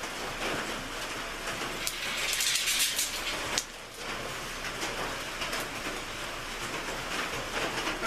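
Rain drumming on a metal roof: a steady, even hiss, louder for a second or so about two seconds in, with a brief drop just before the fourth second.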